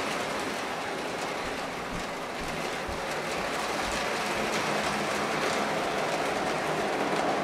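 O gauge three-rail model freight train rolling past on metal track: a steady rolling rumble of wheels with faint scattered ticks.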